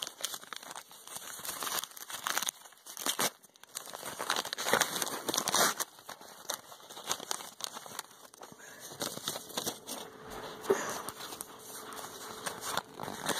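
Lined notebook paper crinkling and tearing as a homemade trading-card pack is unfolded and pulled open by hand, in irregular rustles that are loudest in the middle.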